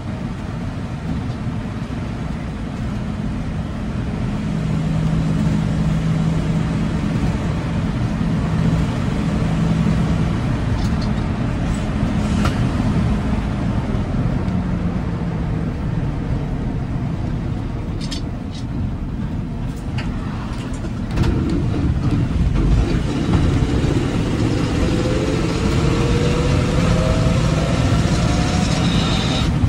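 1957 Chevrolet Task Force 3800 truck running down the road, its engine and drivetrain heard from behind the wheel. About two-thirds of the way through it gets louder, and a rising whine climbs near the end as the truck accelerates.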